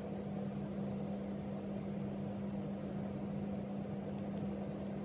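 Steady low background hum with one constant tone, and a few faint crinkles of a plastic piping bag being squeezed as whipped cream is piped.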